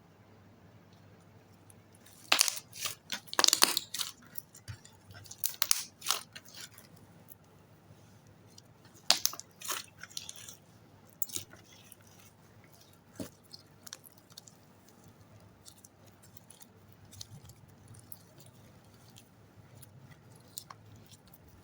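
Slime being worked by hand, giving a few bursts of crackly pops and clicks in the first half, then only scattered faint clicks.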